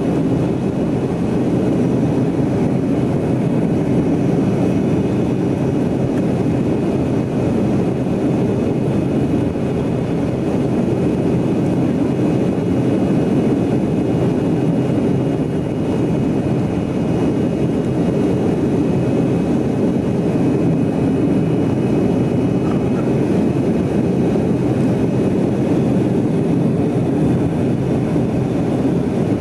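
Cabin noise of a Yakovlev Yak-40 in flight: a loud, steady rush from its three tail-mounted Ivchenko AI-25 turbofans and the airflow, with a faint high whine on top.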